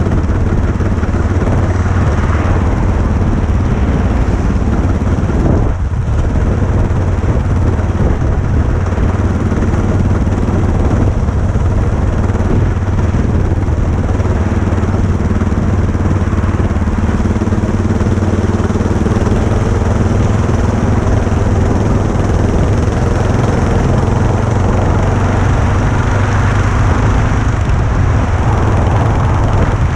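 Motorcycle engine running steadily, a constant low hum with a rushing noise over it, and a brief drop in level about six seconds in.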